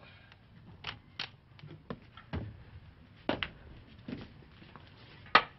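Scattered light knocks and clicks of small objects being handled and set down, about one every second, with a sharper knock near the end.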